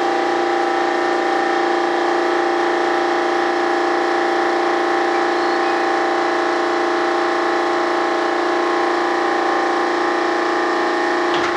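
Steady machine drone with several held tones that do not waver, from a motor-driven machine running in the shop.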